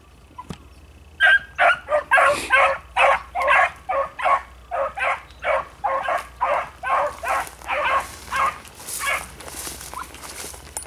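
A pack of beagles giving tongue as they run a track, a quick run of short baying calls, two or three a second. The calls begin a little over a second in and fade near the end.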